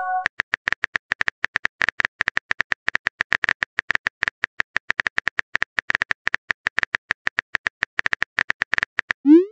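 Phone-keyboard typing clicks from a chat-story app, a steady run of about seven clicks a second. Right at the end a short rising whoosh begins, the app's message-sent sound.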